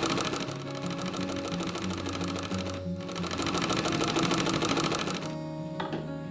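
Restored vintage sewing machine stitching at speed, a rapid even clatter, running smoothly now that its thread tension is fixed. It pauses briefly about three seconds in and stops about a second before the end. Background music plays throughout.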